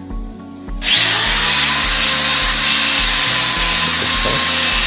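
Corded electric drill starting up about a second in with a rising whine, then running steadily as it bores into the wall.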